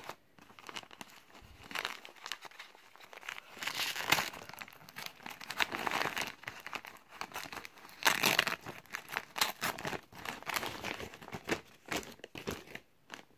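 Tissue-paper wrapping crinkling and rustling as it is pulled open by hand, in irregular bursts, loudest about eight seconds in, dying down near the end.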